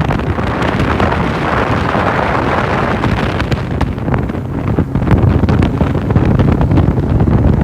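Heavy wind buffeting the microphone, with the rush of a bass boat running across the lake underneath.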